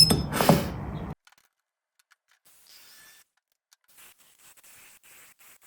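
Ceramic tile being handled, clinking and scraping for about a second, then the sound cuts off abruptly. Only a few faint scratches follow.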